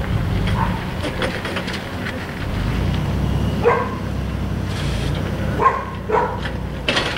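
A dog barking a few short times in the second half, over a steady low rumble.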